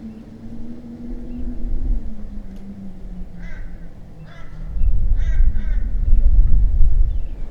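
A bird gives four short calls, about a second apart, over a steady low hum. A low rumble swells about halfway through and is the loudest thing heard.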